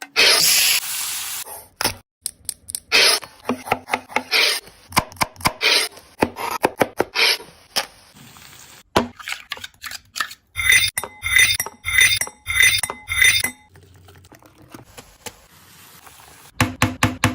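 Metal utensil clinking, knocking and scraping against a cooking pan, opening with a second or so of hissing noise. About ten seconds in comes a run of five evenly spaced ringing metal strikes.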